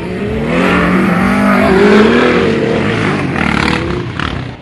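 Off-road motorcycles, one with a sidecar, racing past on a dirt track, their engines revving up and down. They are loudest about two seconds in, then ease off as they move away.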